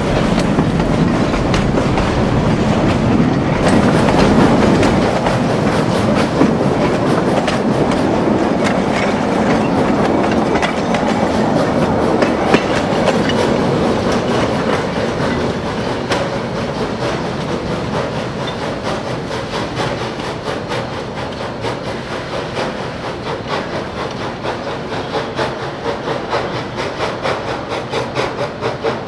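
Narrow-gauge railroad cars and caboose rolling past, their wheels clicking steadily over the rail joints. The rumble grows fainter in the second half as the train moves away.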